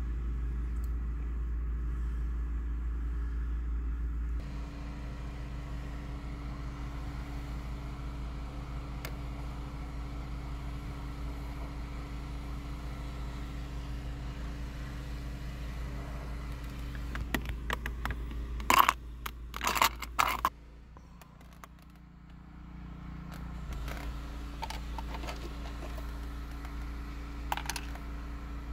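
Steady low hum of a car running, heard from inside the cabin. About two-thirds of the way through comes a quick cluster of sharp plastic clicks and scrapes as the dome-light fitting and festoon bulb are handled. After that the hum dips for a couple of seconds and comes back.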